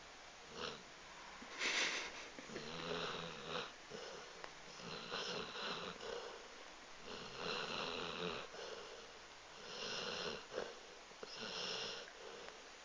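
Golden retriever snoring in deep sleep, a noisy snore with each breath about every two seconds.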